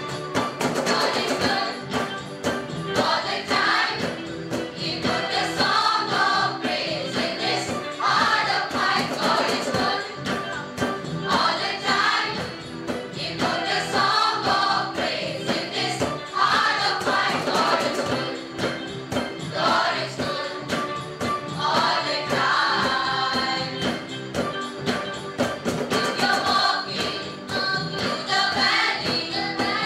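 Choir of mostly girls' and young women's voices singing a gospel song in unison, accompanied by keyboard and cajón and hand-drum percussion keeping a steady beat.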